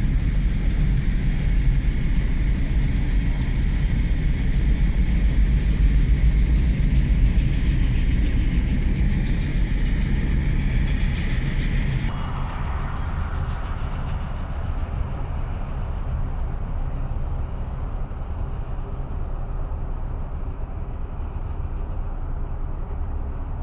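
Union Pacific freight train of autorack cars rolling past, a steady rumble of wheels on rail. About halfway through the higher rushing noise cuts off suddenly, leaving a quieter, lower rumble.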